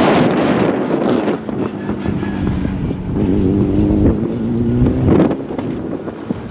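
Rally car engine approaching and accelerating on a gravel stage, its note stepping up in pitch about three seconds in, with a louder swell about five seconds in. Wind buffets the microphone at the start.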